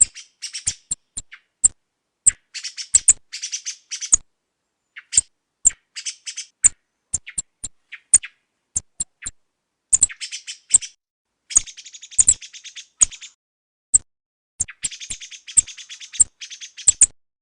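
Song thrush calling and singing: short, sharp high notes alternate with bursts of rapid, scratchy phrases, with silence between them.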